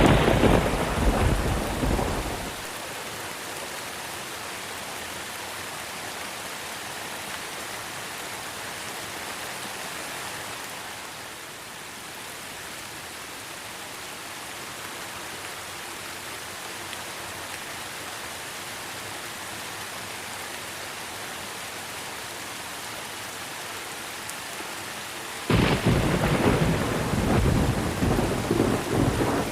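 Steady rain falling, an even hiss throughout, broken by two loud claps of thunder: one at the very start that fades over about two seconds, and another about 25 seconds in that rumbles on for about four seconds.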